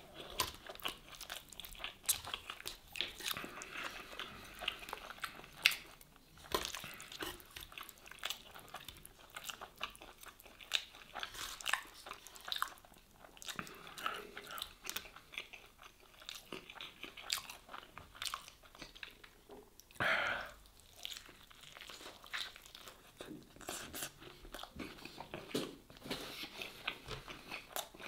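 Close-miked chewing and irregular crunching of mouthfuls of shawarma and sujuk with melted cheese and crisp toasted bread pieces.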